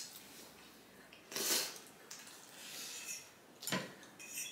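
Close-up eating sounds: a loud noisy burst of chewing or slurping about a second and a half in and a softer one around three seconds, with a sharp click of utensils against a dish near the end.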